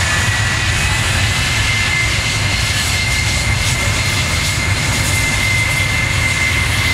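Twin General Electric J79 turbojets of a McDonnell Douglas F-4 Phantom II at taxi power: a steady jet rumble with a high whine held at one pitch.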